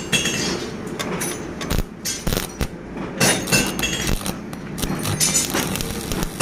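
Irregular sharp metal clinks and knocks from steel being handled and struck during mild-steel gate fabrication.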